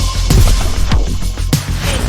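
Loud electronic music with a heavy bass and a steady beat.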